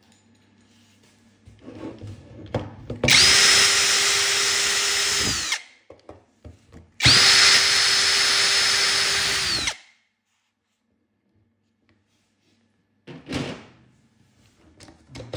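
Hand-held power drill run twice, about two and a half seconds each time, with a steady whine that winds down as each run is released. A few light handling knocks follow near the end.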